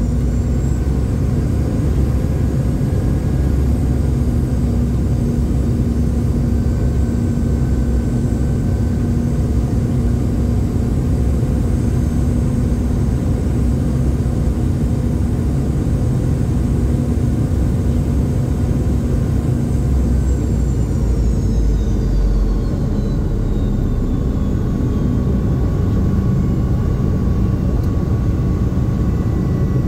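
Cabin sound of a Boeing 717's rear-mounted Rolls-Royce BR715 turbofans: a steady low rumble with a high engine whine. The whine rises at the start, holds, then falls away about twenty seconds in as the engines spool down.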